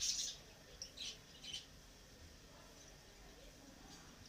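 A metal spoon scraping and clinking against a metal cooking pot while stirring chicken pieces and tomatoes: a few short, high scrapes in the first second and a half, then only faint stirring.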